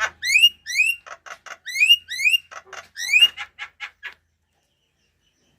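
A bird calling in a rapid series of upswept whistled notes, each rising to a high pitch, alternating with shorter, noisier notes; the calling stops about four seconds in.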